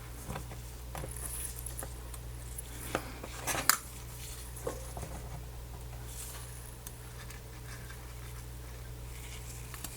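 Faint handling sounds of an adhesive strip being fitted to a tablet frame: a few small clicks and rustles, the sharpest about three and a half seconds in, over a steady low electrical hum.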